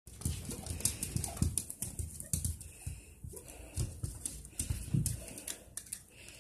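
Siamese kitten's paws and claws knocking and scrabbling against a glass door and its screen: an irregular run of soft thumps and sharp clicks, thinning out near the end.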